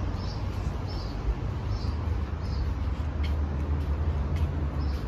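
Low rumble of wind and handling noise on a phone's microphone as it is carried through the garden, with a faint high chirp that repeats every half second to a second.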